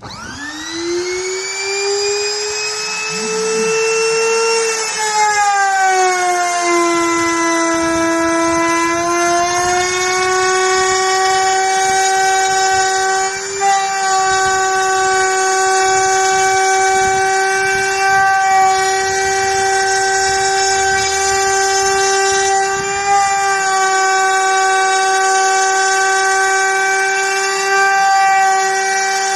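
CNC router spindle spinning up with a rising whine, then dropping in pitch at about five seconds as the bit takes load in the wooden cutting board. It settles into a steady high whine while cutting.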